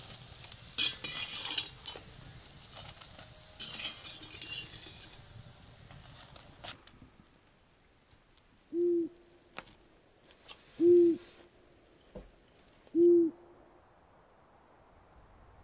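Food sizzling in a pan while it is stirred, with utensil clicks, fading out over the first half. Then an owl hoots three times, about two seconds apart, each a short, low hoot on one steady note.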